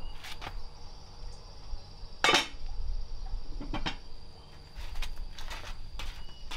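Scattered knocks and clinks of objects being handled, the loudest a little over two seconds in, over a faint steady high tone.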